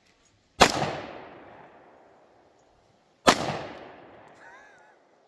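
Two semi-automatic pistol shots about two and a half seconds apart, each ringing out with a long echoing tail.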